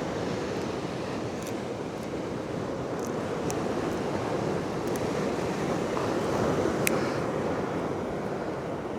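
Steady wash of surf and wind noise, swelling briefly about two thirds of the way through, with a few faint clicks.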